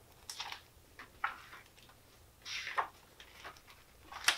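Faint rustles and a few light ticks of a paperback picture book being handled and opened.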